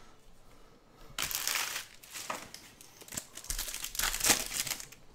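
A baseball trading-card pack's wrapper being torn open and crinkled by hand, in several short rustling bursts, the loudest about four seconds in.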